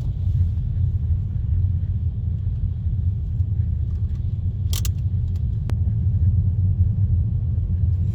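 Steady low rumble of a moving car heard from inside the cabin: road and engine noise, with one short sharp click about five seconds in.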